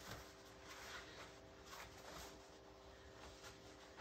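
Near silence: room tone with a faint steady hum and a few soft rustles of fabric as a black cloth cover is handled and folded.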